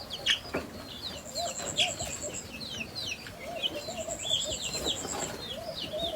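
A flock of chickens in a pen chirping and clucking continuously, many short high cheeps over lower clucks. Twice a fast, very high rattling trill runs for about a second and a half.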